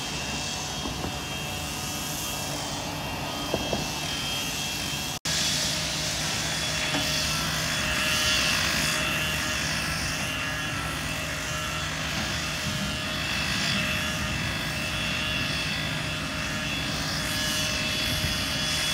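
Diesel engines of heavy construction equipment, an excavator and a backhoe loader, running steadily: a constant engine drone with a few steady tones over it, broken off for an instant about five seconds in.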